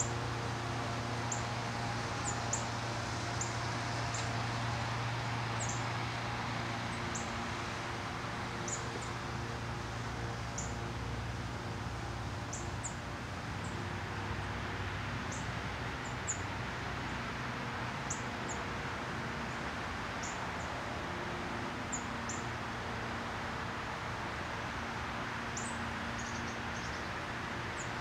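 Small songbirds giving short, high chip notes, scattered and irregular, over a steady background hiss and low hum.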